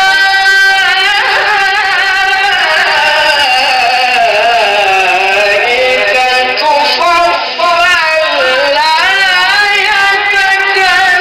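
A male qari reciting the Quran in melodic tilawah style: a high voice holds long notes and winds through ornamented, wavering runs, sung into a microphone.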